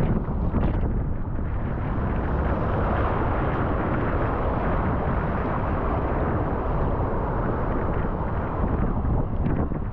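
Strong wind buffeting an action camera's microphone in a steady low rumble, mixed with the rushing hiss of ocean surf around a kayak.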